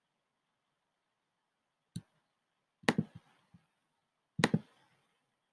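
A few sharp clicks and knocks against silence: one click about two seconds in, a cluster of two or three louder knocks about a second later, and a final loud double knock.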